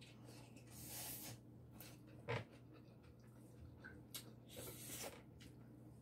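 Faint eating sounds: chewing and soft mouth and hand noises from two people eating rice and stewed pork with their hands. There is a sharp click about two seconds in, over a steady low hum.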